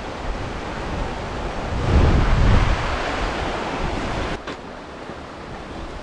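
Sea waves washing on the shore with wind buffeting the microphone; a louder surge comes about two seconds in, and the sound drops suddenly a little after four seconds.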